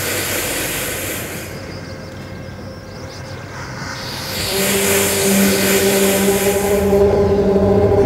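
Electronic sound-art played over the rotobossophon, a rotor carrying four loudspeakers: hissing noise swells rise and fade, and about halfway through a sustained pitched drone enters, with a low rumble joining near the end.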